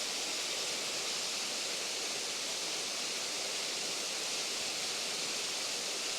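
Steady hiss of a small waterfall's low flow trickling and splashing over rocks.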